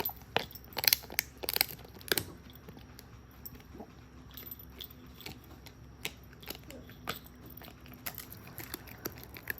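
Shiba Inu chewing a cowhide chew treat: a run of loud crunching bites in the first two seconds, then lighter gnawing clicks.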